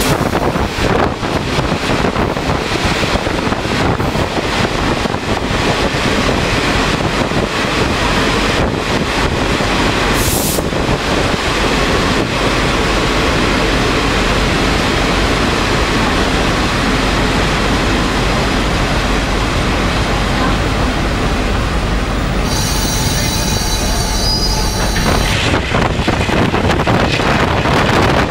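Passenger coach of a diesel-hauled train running at speed, heard from its open window: steady wheel and rail rumble with wind rush. A thin high wheel squeal rings for a few seconds near the end.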